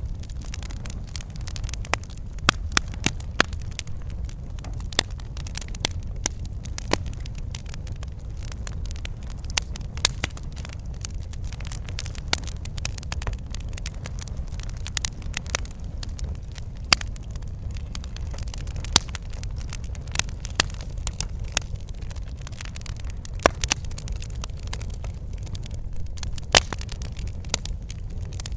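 Wood fire in a fireplace crackling, with sharp pops at irregular moments over a steady low rumble.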